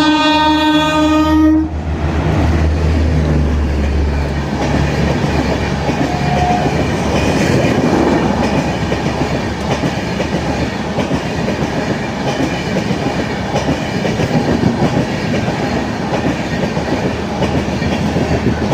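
Indian Railways WAP-4 electric locomotive blowing its horn, which cuts off a little under two seconds in. After it comes the steady rumble and rush of the Tejas Express coaches running through the station.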